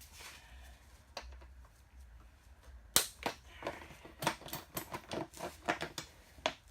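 Plastic rear fender of a dirt bike being worked free of the zip ties holding it on: a loud sharp snap about three seconds in, then a quick run of clicks, knocks and plastic rattles.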